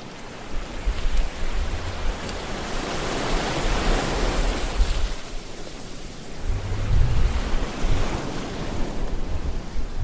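Sea waves washing in and out: a rushing surf that swells to a peak about four seconds in and eases off, with low rumbles from breaking water a couple of seconds later.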